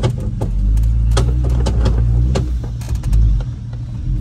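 Off-road Jeep's engine running under load as it crawls over rough ground, with a string of sharp knocks and clunks. The low engine sound grows heavier about half a second in and eases off shortly before the end.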